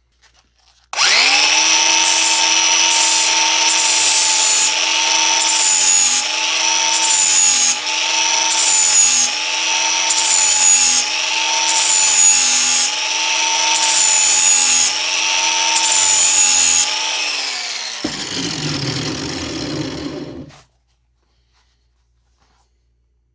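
Angle grinder with a flap disc grinding the edge of a steel lawn mower blade to sharpen it. The motor spins up about a second in, then runs with a high whine that dips about once a second as the disc is pressed along the edge. After about sixteen seconds it is switched off and winds down with a falling pitch, followed by a couple of seconds of rubbing noise.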